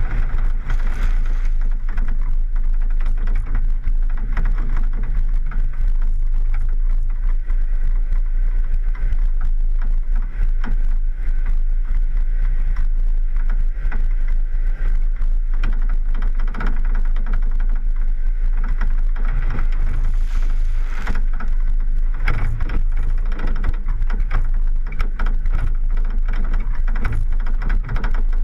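A 4x4 off-road vehicle driving over a muddy dirt road, heard from a camera on its hood: a steady low rumble of engine and wind, with mud and water spattering as it splashes through a puddle near the start.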